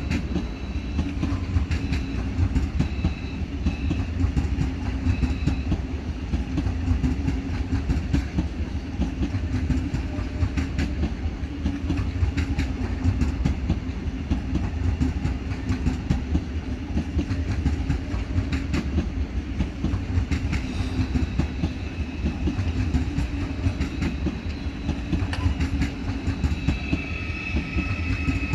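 ICE 4 (class 412) electric high-speed train rolling past, a steady low rumble with its wheels clicking over rail joints and points. A high squeal joins in near the end.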